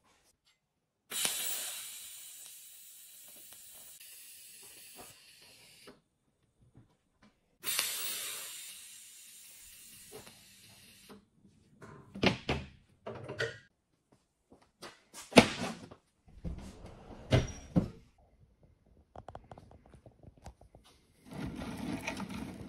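TIG welding arc hissing in two stretches of a few seconds each, each starting suddenly: the hand of a recycled-metal sculpture being welded on with a TIG torch. A handful of sharp metal knocks and clatter follow, and near the end comes the rustle of loose bicycle brake cables being handled in a box.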